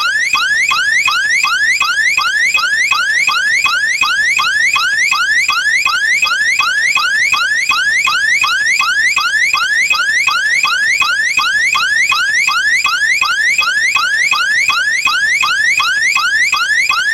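Home security system's electronic alarm siren sounding continuously: a rapid, loud rising whoop that repeats about three times a second at an even pace.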